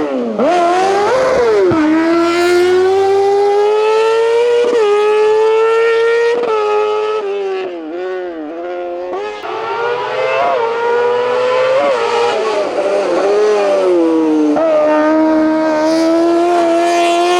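Race car engine at full throttle on a hillclimb, climbing in pitch and shifting up through the gears with quick drops in revs. About halfway through it goes quieter, with the revs dipping and rising as the driver lifts off and blips down for a bend, then pulls hard and shifts up again.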